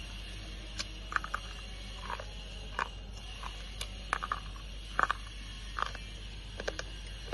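Wet slate pencils being bitten and chewed: about a dozen irregular, crisp crunches, the loudest about five seconds in, over a steady background hiss.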